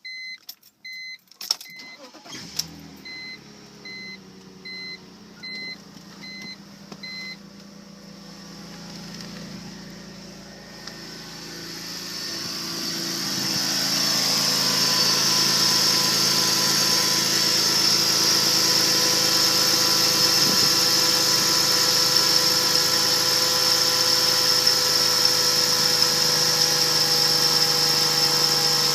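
2001 BMW 330i's M54 inline-six starting a couple of seconds in and idling, while a chime beeps evenly for the first several seconds. After about ten seconds a high-pitched belt squeal builds up and then holds steady and loud over the idle.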